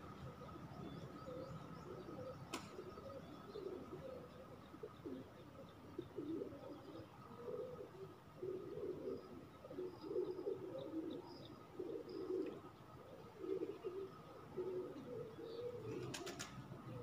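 Dove cooing over and over, a run of low coo phrases through most of the second half, over a faint steady high tone. A sharp click sounds about two and a half seconds in, and a short cluster of clicks near the end.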